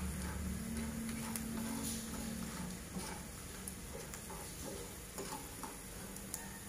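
A fork stirring peanuts frying in a pan: scattered light clicks and ticks of the fork and the peanuts against the pan, over a low hum that fades out a couple of seconds in.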